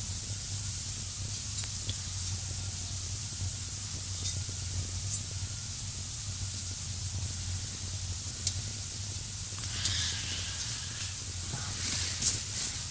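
Steady low electrical hum and hiss of background noise, with a few faint scattered clicks and a soft rustle near the end.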